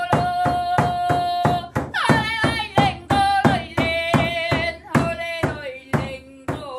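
Sami joik: one voice sings long held notes that slide between pitches, over a steady drumbeat of about three strikes a second.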